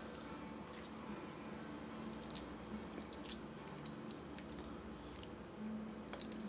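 Faint wet squishing and small scattered clicks of fingers pressing fried onion stuffing into a marinated mackerel's pocket.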